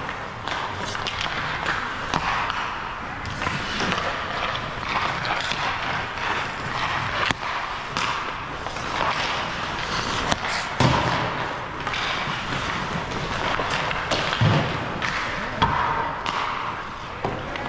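Ice hockey rink sounds: skate blades scraping and carving the ice in a steady hiss, with sharp knocks and thuds of sticks and pucks, including a few louder bangs several seconds apart.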